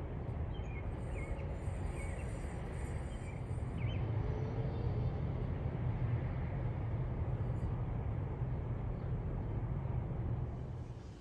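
Outdoor ambience: a steady low rumble with a few faint bird chirps in the first four seconds, the rumble dropping away near the end.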